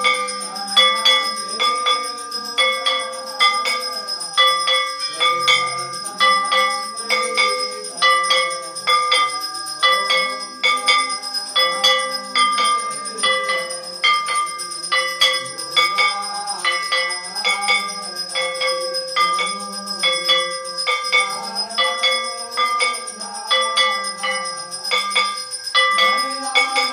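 Temple bells rung for aarti, struck about twice a second in a steady rhythm, each strike ringing on into the next.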